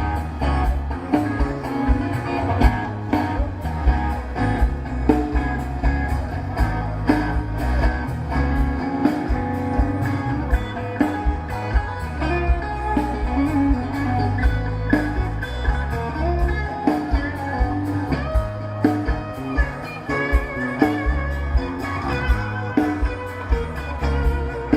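Rock band playing live: guitar over bass and a steady drum beat.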